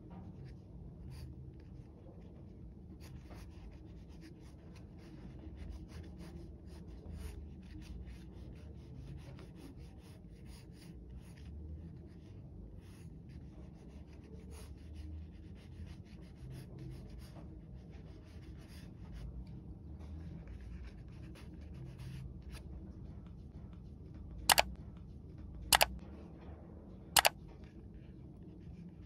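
Faber-Castell Pitt Graphite pencil sketching on paper: a run of short, light scratching strokes. Near the end come three sharp clicks a little over a second apart, much louder than the drawing.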